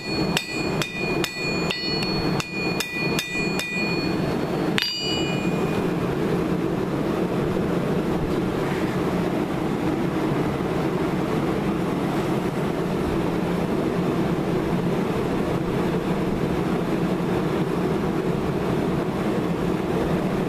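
Hand hammer striking hot square steel bar stock on an anvil, about ten ringing blows in the first four seconds and a last blow near 5 s, bending the hook of a hand-forged steak flipper. A steady background roar runs under the blows and carries on alone after the hammering stops.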